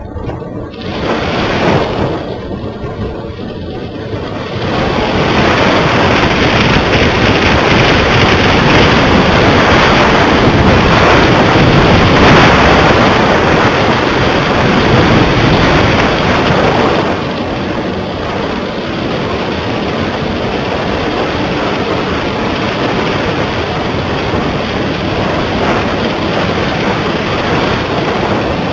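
Wind rushing and buffeting over the microphone of a camera carried aloft on a kite line: a loud, dense rushing noise. It swells a few seconds in and eases somewhat about seventeen seconds in.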